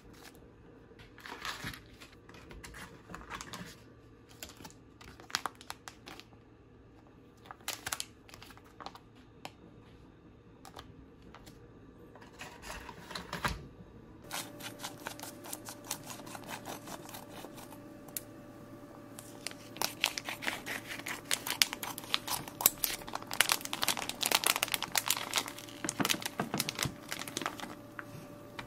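Plastic vacuum-pack bags crinkling and rustling as they are handled: scattered crackles at first, then a dense run of rustling in the second half as a steak is pulled out of its bag.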